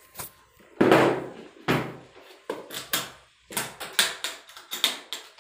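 Metal latches of a black hard carrying case being snapped open and the case handled and its lid lifted: a run of about ten sharp clicks and knocks, the loudest about a second in.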